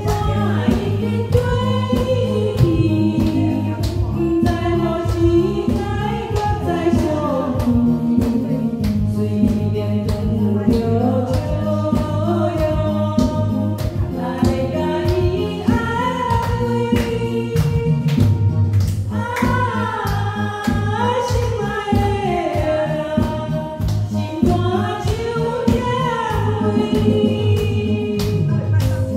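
Karaoke backing track playing a Taiwanese-language pop ballad, with a woman singing the melody into a microphone over it.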